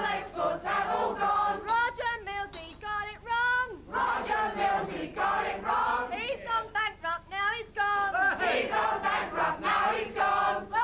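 A group of voices singing together, with wavering held notes and no clear instrumental backing.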